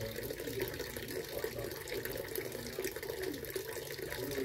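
Small garden fountain running, a steady sound of splashing water.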